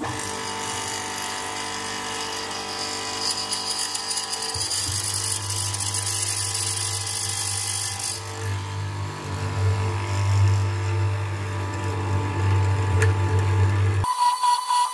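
Hollow-chisel mortiser running as its auger and square chisel are plunged into a hardwood workpiece, a steady motor hum that deepens and grows heavier under load from about four seconds in. Near the end the machine sound cuts off abruptly to background music.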